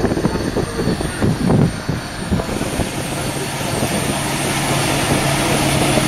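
Kubota M7151 tractor's 6.1-litre four-cylinder diesel engine running under way with a round baler in tow. About halfway in, a steady engine drone comes up and grows louder as the tractor heads toward the microphone.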